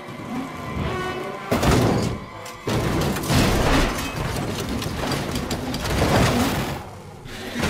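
A race-car wreck in a film soundtrack: a sudden crash hit about a second and a half in and another near three seconds, then a long noisy stretch as the cars skid and slide through turf, with music underneath.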